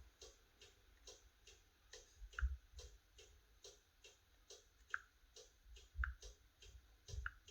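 Faint, steady ticking at about three ticks a second, with a few louder clicks and soft low thumps now and then.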